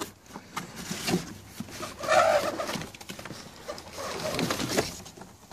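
Cardboard box flaps and plastic and bubble-wrap packaging being handled and rustled, with a brief louder sound about two seconds in.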